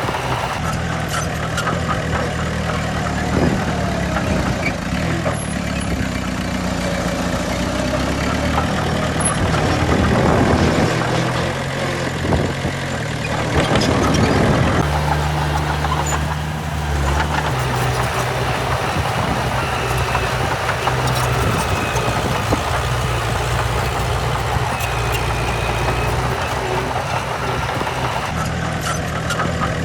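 Diesel engines of heavy earthmoving machinery (a bulldozer and dump trucks) running steadily. The engine sound swells louder twice, about a third of the way in and again about halfway through.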